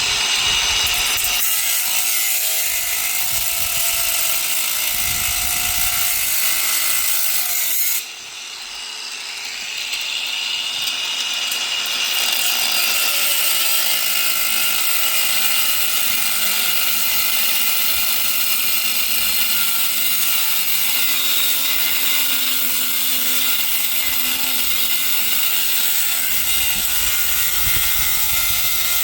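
Power drill boring into a safe's steel. It runs steadily, stops briefly about eight seconds in, then builds back up over a few seconds as it bites again.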